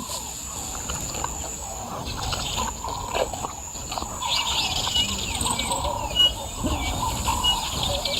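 Bush ambience: wild birds calling and chirping, over a steady high insect drone. About halfway through, one bird starts repeating a short high note at an even pace.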